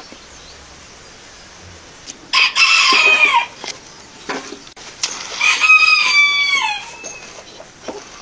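A rooster crowing twice, once about two seconds in and again, longer, around five seconds in, each crow ending on a falling note.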